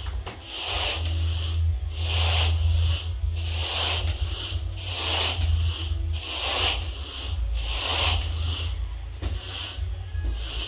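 Carpet rake dragged through cut-pile carpet in repeated strokes, grooming the pile after low-moisture cleaning: a rhythmic scratchy brushing, a little more than one stroke a second, over a steady low hum.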